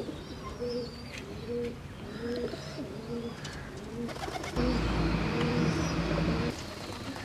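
A bird cooing over and over, a soft low call repeating about twice a second. A louder stretch of low rumbling noise lasts about two seconds past the middle.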